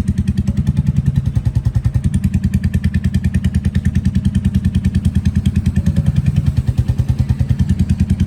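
Royal Enfield Meteor 350's single-cylinder engine idling through an aftermarket Punjab-style silencer: a loud, steady exhaust beat of about ten pulses a second, swelling slightly about six seconds in.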